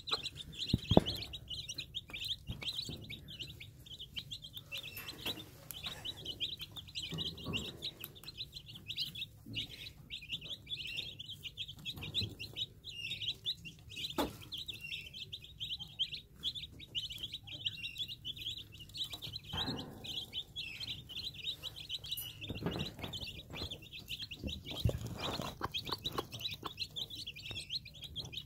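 A brood of domestic chicks peeping nonstop in a dense, high-pitched chorus, with the mother hen's occasional low clucks. A sharp knock about a second in.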